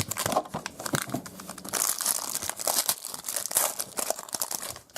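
Foil wrapper of a trading-card pack crinkling and tearing as it is opened by hand, with many small irregular clicks and a louder crackle about two seconds in.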